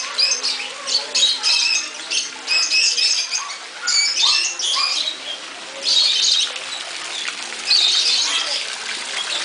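Aviary birds chirping and chattering in quick high-pitched bursts, thickest over the first few seconds, then in a few separate flurries with short lulls between.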